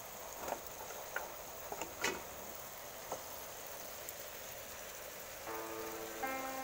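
A few light clicks and knocks of a plate and a wooden spoon against an aluminium cooking pot, over a faint steady hiss. About five and a half seconds in, background music with a plinking melody starts.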